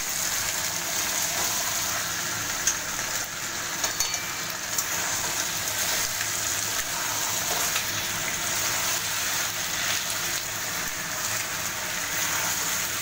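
Chicken pieces sizzling steadily in hot oil in a wok as they are sautéed and stirred with a metal spatula, with a few sharp clicks of the spatula against the pan.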